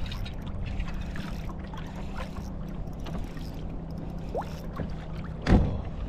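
Choppy water lapping against a kayak hull under a steady low rumble, with faint scattered clicks. A single sharp thump about five and a half seconds in is the loudest sound.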